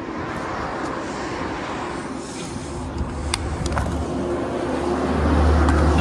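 A motor vehicle's engine running, its low rumble growing louder through the second half, with a few sharp clicks over it.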